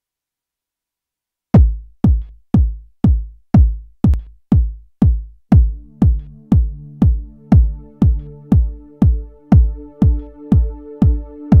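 Drum-machine kick drum starting about a second and a half in and playing a steady four-on-the-floor techno beat, about two kicks a second. About four seconds later a held chord on the Casio PX-5S keyboard comes in under the beat, and a higher held note joins a moment after.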